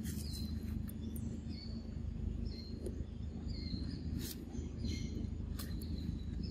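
Outdoor woodland ambience: small birds chirping in short high calls about once a second, over a steady low rumble, with a couple of faint clicks.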